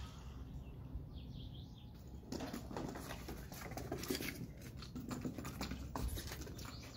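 A cat's paws patting and scrabbling on a tiled floor as it pounces and bats at a small object. A rapid patter of light taps and clicks starts about two seconds in. A few faint, high chirps come just before it.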